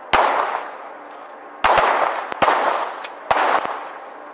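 Semi-automatic pistols fired from several firing points on a range: about five sharp shots in four seconds at an uneven pace, each trailing off over about half a second.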